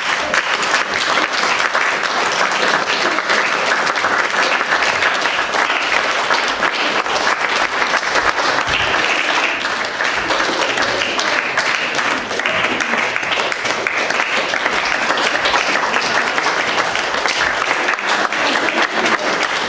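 Audience applauding: dense, steady clapping from a roomful of people that holds at an even level throughout.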